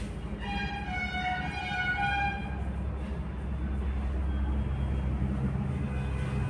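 A horn-like tone sounds for about two seconds, shifting a little in pitch, over a steady low rumble.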